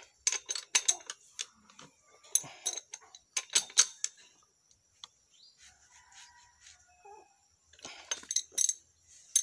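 Metal wrench clinking on a motorcycle's front axle nut as it is fitted and turned, in four bursts of sharp metal-on-metal clinks with a lull in the middle.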